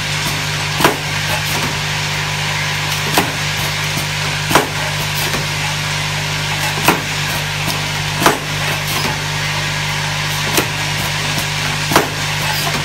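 Automatic cap-assembly machine running: a steady motor hum and hiss, with sharp mechanical clacks from its cap-inserting stations about every second or so and lighter clicks between.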